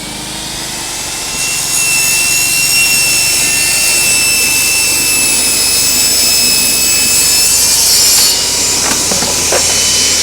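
Table saw running, its blade cutting through a wooden shelving board from about a second and a half in until about eight seconds, then spinning free. The saw is powered by an inverter generator that is carrying the load with no problem.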